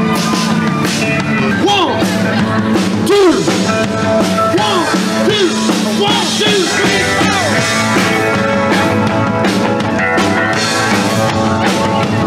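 Live rock and roll band playing: electric guitar over a drum kit, with a run of swooping, arching notes through the middle.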